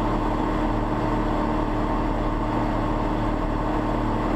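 John Deere 4850 tractor's six-cylinder diesel engine running steadily under load while pulling a disc, heard from inside the cab as a constant, even hum.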